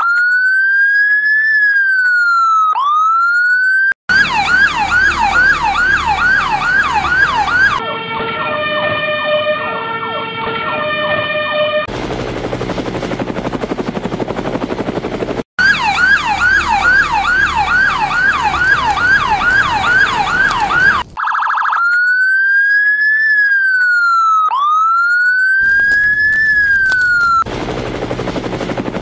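Electronic toy emergency-vehicle sirens cycling through patterns: a slow rising and falling wail, then a fast yelp, then a stepped two-note pattern, then a stretch of steady noise with a high whistle. The cycle starts over about halfway through, with a yelp, a wail and the noisy stretch again.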